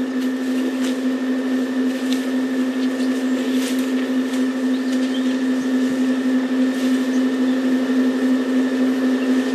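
Safari vehicle's engine idling, a steady hum at one unchanging pitch, with a few faint clicks over it.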